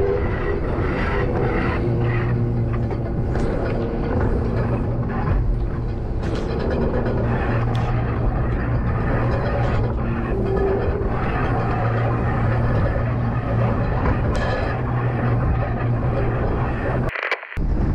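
Steady low drone of a boat's motor under wind and water noise on deck.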